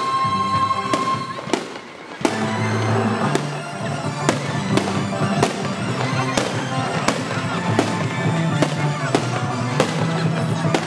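Aerial firework shells bursting in the sky with sharp bangs about every half second, after a brief lull about two seconds in, over background music with a steady bass line.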